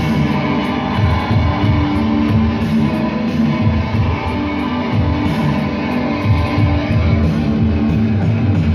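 Amplified electric guitar played live, loud and unbroken, a dense low-heavy wash of sound.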